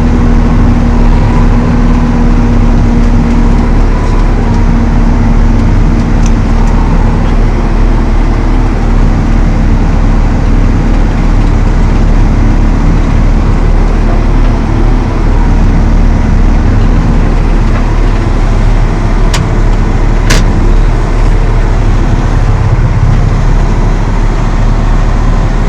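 Valtra T214 tractor's six-cylinder diesel engine running steadily under load while powering an Elho Tornado chain flail mower, a loud, dense low drone. A steady hum sits over it at first and fades after a few seconds; two sharp ticks come about three quarters of the way through.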